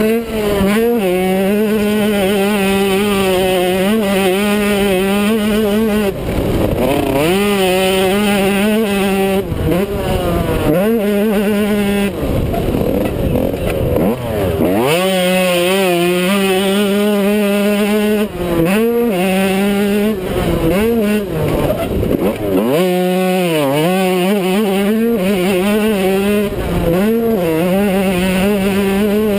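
Yamaha YZ125's single-cylinder two-stroke engine ridden hard on a motocross track, revving up through the gears and dropping off sharply when the throttle is chopped, over and over.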